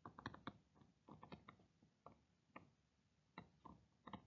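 Faint, irregular clicks and taps of a stylus tip on a tablet or pen-display surface during handwriting, several a second in small clusters.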